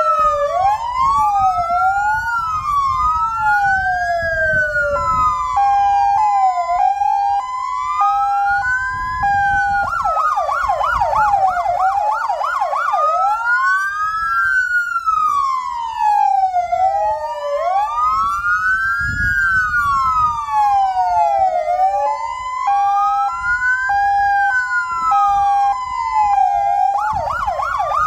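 Electronic sirens of two fire service vehicles sounding together: overlapping slow rising-and-falling wails, with stretches of a steady two-tone hi-lo and a fast yelp twice. It is a sounding of sirens in tribute to a fallen firefighter.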